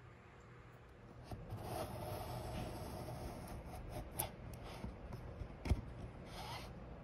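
Miniature shooting plane rubbing and scraping along the shooting board's aluminium track under the woodworker's hand, starting about a second in. There are two short knocks, the louder a dull thump near the end.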